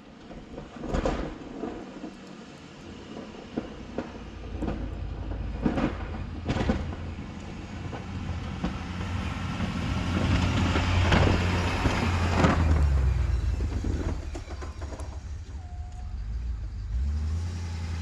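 Ford F-350 pickup running and on the move, a steady low engine rumble with several sharp clunks and rattles; it grows louder for a few seconds about ten seconds in.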